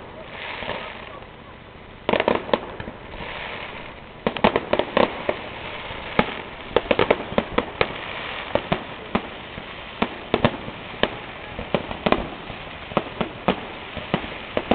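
Fireworks display: aerial shells bursting one after another in sharp bangs over a constant crackle, the bangs coming thick and fast from about four seconds in.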